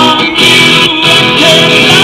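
A live song: a singer with strummed guitar accompaniment, recorded loud.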